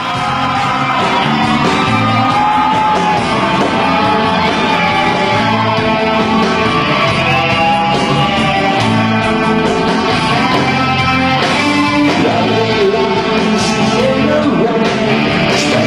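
Live rock band playing a steady beat, with drums and bass guitar, loud in a concert hall.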